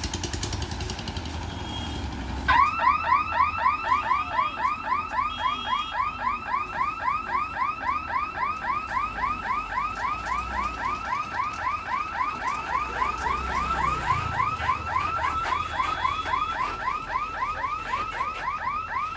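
Level-crossing gate warning hooter sounding as the boom barrier lowers: a rapid electronic chirp, rising in pitch each time, repeated about three times a second, starting a couple of seconds in. Under it runs the low engine rumble of a loaded truck crossing the tracks.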